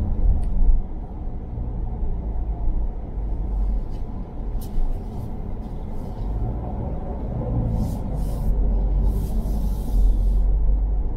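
Car driving, heard from inside the cabin: a steady low rumble of road and engine noise, with a few short hisses in the second half.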